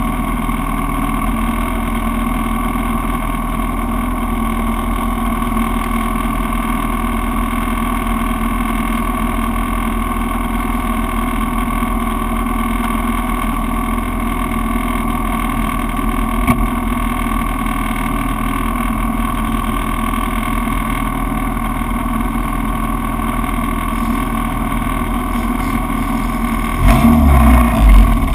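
Spec Racer Ford race car's engine running at a steady, unchanging speed; near the end it suddenly gets much louder, with a deeper rumble.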